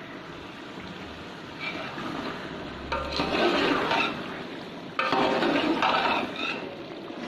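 A pot of bottle gourd and chicken curry bubbling as it simmers, a steady hiss of bubbling that grows louder about three seconds in and again from about five seconds.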